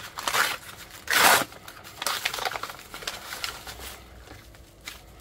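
White paper mailing envelope being torn open and crumpled by hand, with a loud rip about a second in, followed by lighter crinkling as a bubble-wrapped item is pulled out.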